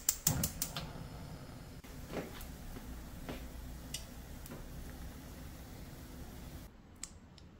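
Metal tongs tapping against a saucepan now and then as meat is turned in boiling water, over the steady low hiss of a lit gas burner. A quick run of sharp clicks at the start; the steady sound cuts off near the end.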